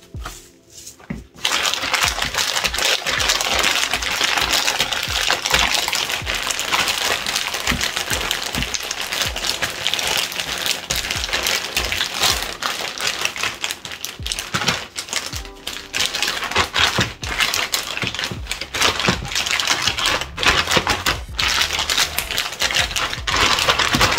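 Plastic zip-top storage bag crinkling and rustling continuously as cubes of raw steak are kneaded inside it to work in the seasoning, starting about a second in.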